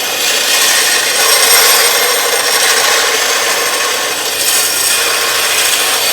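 Power grinder grinding the steel cleaver blank to shape: a loud, steady grinding hiss of abrasive on metal.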